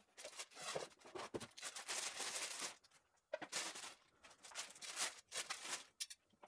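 Clear plastic wrapping rustling and crinkling in irregular bursts as a small coffee bean cooler is unwrapped and handled, with a short pause about three seconds in.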